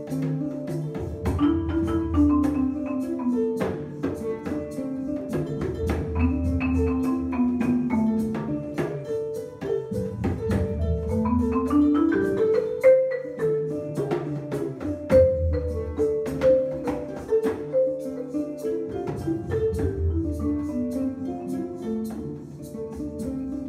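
Improvised world music played live: a marimba struck with mallets in quick runs over a low drum beat, with sliding tones gliding up and down.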